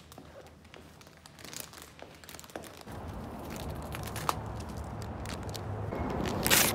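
Crinkling and scraping of a phone being handled and carried while walking, with footsteps. A steadier rustle comes in about three seconds in, and there are a few sharp clicks near the end.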